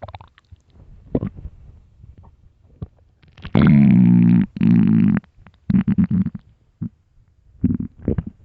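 Empty human stomach growling, loud and deep: a few short gurgles, then a long pitched growl lasting about a second and a half, then a string of short gurgles near the end.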